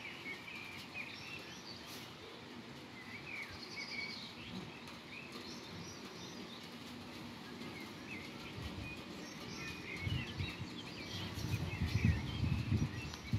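Birds chirping and twittering over a steady outdoor background hiss. From about two-thirds of the way in, low irregular rumbles grow louder.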